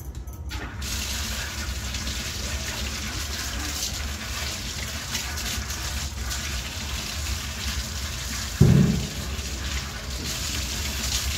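Water running from a tap onto a concrete floor while hands are washed under it, starting just under a second in. A short, low thump about nine seconds in is the loudest moment.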